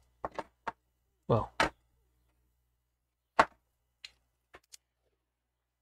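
Scattered light clicks and taps of hands handling a roll of insulation tape and the gimbal's plastic battery handle, with one sharper click a little past the middle.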